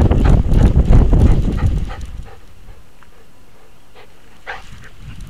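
Rhythmic knocking and fur rubbing from a camera strapped to a trotting dog's back, the harness jolting with each step; about two seconds in the dog stops and it drops to a low level with a few faint clicks.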